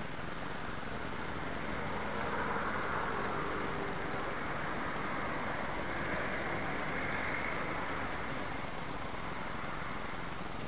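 Gusty wind rushing over the microphone: a steady noise that swells twice, about two seconds in and again about six seconds in.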